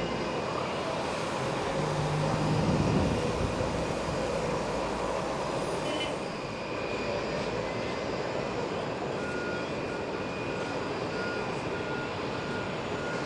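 Airbus C295M's two turboprop engines running steadily, with a swell in level about three seconds in.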